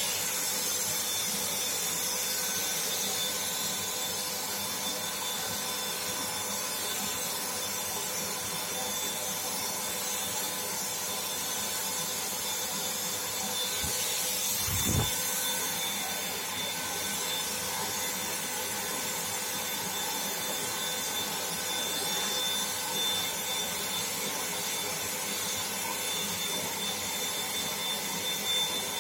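Black+Decker HVLP400 electric paint spray gun running steadily while spraying a coat of paint: an airy hiss with a thin steady whine from its motor. A short bump about halfway through.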